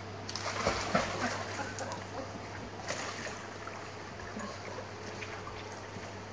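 Dog dropping off the edge into a swimming channel with a burst of splashing about half a second in, then paddling with softer splashing and water lapping. A steady low hum runs underneath.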